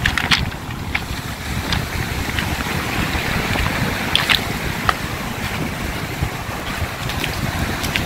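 Stormy sea surf breaking and washing over a pebble beach, with wind buffeting the microphone as a low rumble. Scattered short, sharp clicks of stones knock together in the wash.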